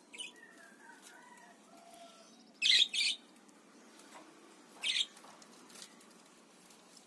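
A pair of parakeets: soft warbling chirps over the first two seconds, then three short harsh bursts, two close together about three seconds in and one near five seconds.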